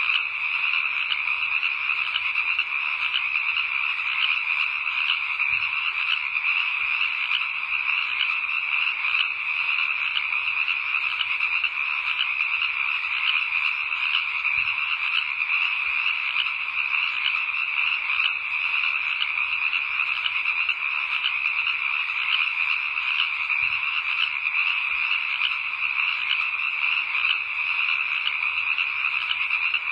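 A dense, steady chorus of many frogs calling at once, their rapid overlapping pulses forming one unbroken wall of sound.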